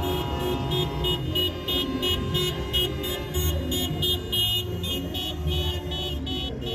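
Parade vans driving slowly past with engines running and a horn note held that cuts off about a second in. Under it runs a fast, even, high electronic pulsing, about three pulses a second.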